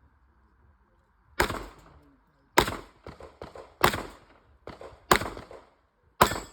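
Gunfire on a shooting range: five loud shots about a second and a quarter apart, with fainter shots in between.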